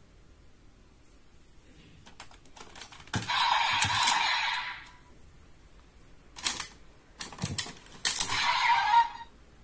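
Plastic clicking and rattling of a Desire Driver toy belt as its buckles are pulled off and the driver is handled. There are scattered sharp clicks and two louder stretches of rattling noise, each a second or more long.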